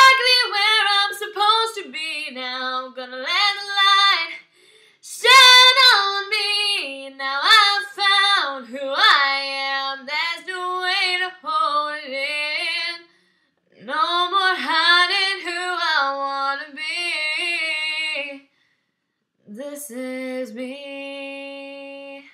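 A young woman singing unaccompanied, in sung phrases broken by three short pauses, ending on a long held note.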